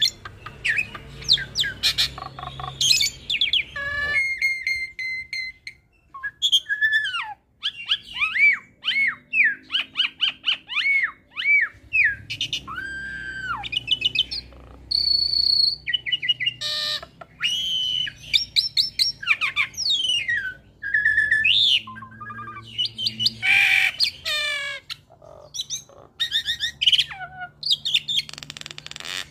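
A Jalak Suren × Jalak Nias hybrid (Asian pied starling crossed with Nias hill myna) singing a varied, continuous song of clear whistles, rising and falling glides, chirps and quick rattling trills, with a brief pause about five seconds in.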